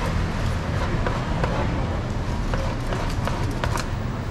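Irregular sharp taps and clicks of a knife cutting pineapple on a plastic cutting board, with plastic clamshell boxes being handled, over a steady low rumble of street noise.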